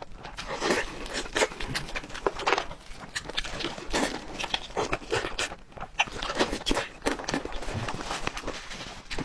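Close-up eating sounds: food being chewed and crunched, with many irregular crisp clicks and crackles.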